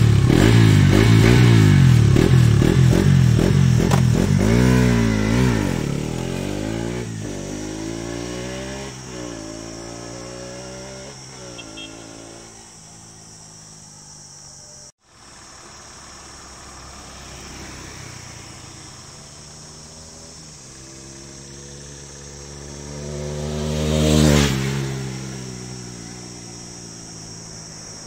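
Bajaj Pulsar RS 200's single-cylinder engine running with its stock silencer removed. It starts loud as the bike pulls away, revving up and shifting through the gears, and fades into the distance. Later a motorcycle approaches, passes loudest about two-thirds of the way through, and fades away.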